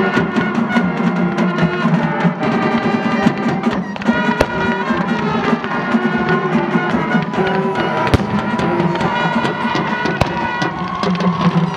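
Instrumental music with drums playing at full volume, with a few sharp firework bangs through it.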